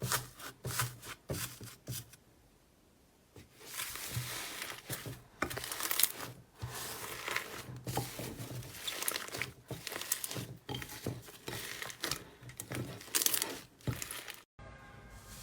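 Slime being squeezed and worked by hand, giving dense crackling and popping clicks. There is a short pause about two seconds in, and the sound cuts off abruptly near the end.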